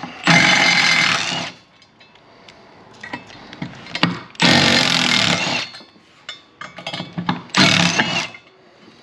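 Cordless power driver run in three bursts of about a second each, spinning out the bolts that hold the jet ski's intake grate to the hull.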